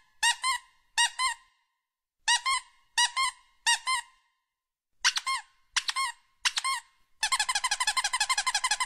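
Rubber squeaky-toy squeaks timed to a finger pressing an alpaca's nose. They come in groups of three, about 0.7 s apart, then turn into a fast run of about eight squeaks a second for the last couple of seconds.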